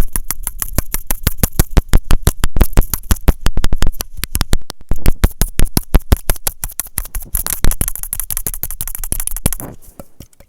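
Fingers tapping rapidly on an aluminium Dr Pepper soda can, several sharp taps a second, stopping about a second before the end.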